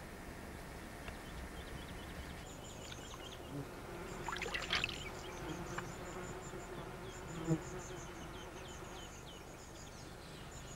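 Night-time insect sounds: rows of rapid, high-pitched chirps and a low buzz from a flying insect. A brief rustle comes about halfway through, and a single knock follows a few seconds later.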